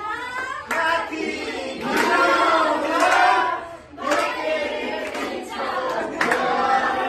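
A group of voices singing a Deusi Bhailo Tihar folk song together in chorus, in phrases broken by a short pause about four seconds in, with some hand claps.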